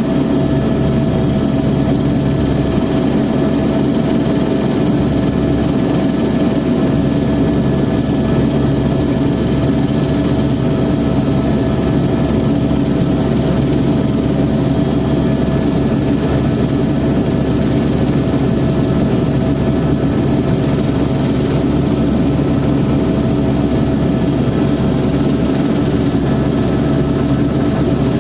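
Helicopter in flight: steady engine and rotor noise with a constant hum, holding unchanged throughout.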